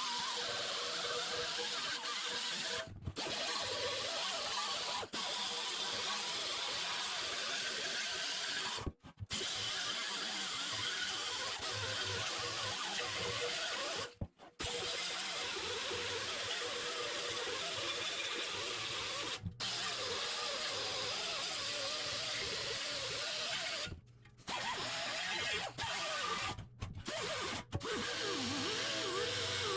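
A handheld power tool running steadily in long stretches, broken by several abrupt cuts.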